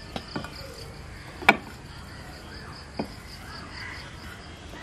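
A few sharp clicks of a hand knocking against a glass plate while mixing grated coconut filling, the loudest about a second and a half in and another about three seconds in. Behind them, a steady high insect chirping pulses about five times a second.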